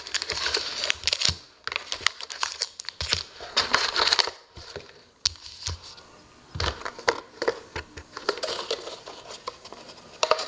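Foil trading-card packs crinkling as they are handled, lifted from the box and stacked on a table, with small taps in between and short pauses.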